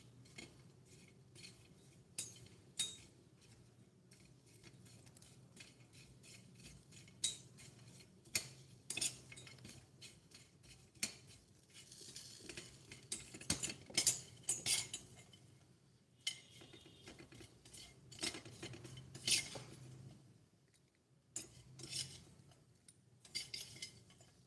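Tiny metal ladle and tongs clinking and scraping against a miniature stainless steel pot while stirring popcorn, in irregular quick clicks with a busier patch of scraping midway.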